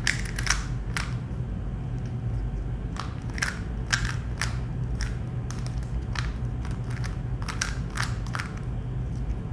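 Plastic Rubik's cube being turned face after face, its layers clicking and clacking irregularly about two times a second, over a steady low hum.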